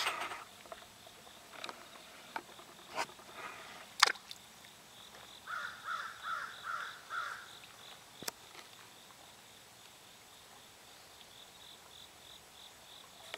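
Insects chirping in a steady, fast-pulsing high drone, broken by a few sharp clicks. About halfway through comes a brief run of five quick notes.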